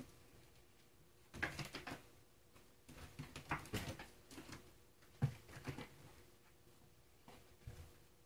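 A cat's paws and claws scrabbling and knocking on the wooden shelves and post of a cat tower as it climbs and plays, in four short bursts of light knocks.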